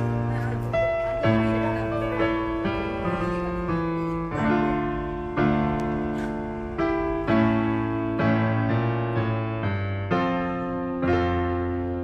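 Background piano music: slow chords, a new one struck about every second.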